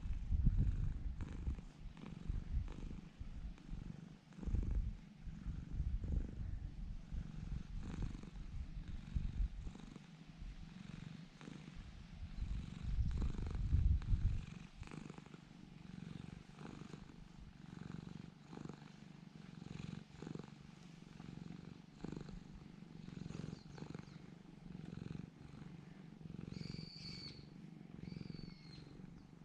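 Domestic cat purring steadily while being stroked, a continuous pulsing low rumble close to the microphone, with a few louder bumps in the first half. Two short high chirps sound near the end.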